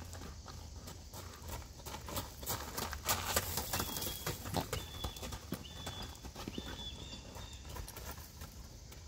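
Horse's hooves pounding and crunching on a dirt and gravel arena as it canters on a lunge line, loudest about three seconds in as it passes close by, over a low wind rumble.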